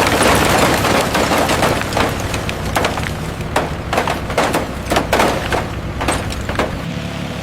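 Irregular sharp bangs and knocks, several a second in clusters, over a steady low machine hum.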